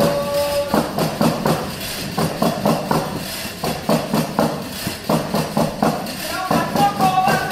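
Pandereta, a round Spanish tambourine with jingles, beaten in a steady rhythm of about three strokes a second, its jingles ringing on each stroke. A held sung note ends about a second in, and singing starts again near the end.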